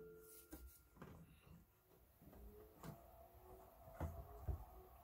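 Near silence: room tone, with a few faint soft taps about four seconds in as a silicone-gloved hand reaches the microwave's keypad.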